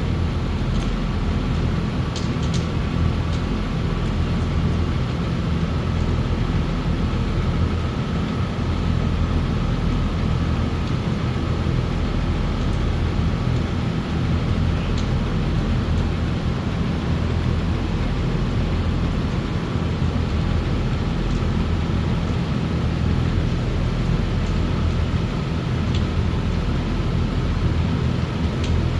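Aronson 3,000 lb welding positioner's elevation drive running steadily as it raises the table, a steady machine hum with a faint high whine over it.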